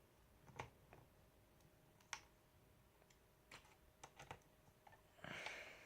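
Faint, scattered clicks and taps of a small screwdriver working screws into a laptop's frame, with a brief soft scrape near the end.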